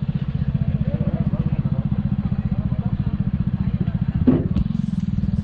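Small motorcycle engine running at a low, steady, even putter close by. A clattering thump comes about four seconds in.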